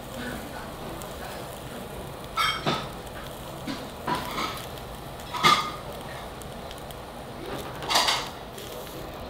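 Hanwoo beef rib meat sizzling on a wire mesh grill over charcoal, with a few sharp metallic clinks about two and a half, four, five and a half and eight seconds in, the loudest near five and a half seconds.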